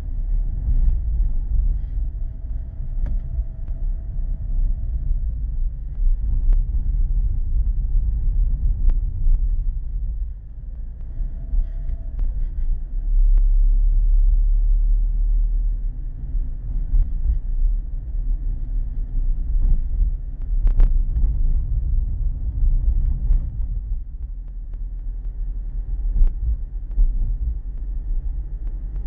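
Car cabin noise picked up by a dashcam's built-in microphone: a steady, heavy low rumble of the engine and tyres while driving, with one sharp click a little past two-thirds through.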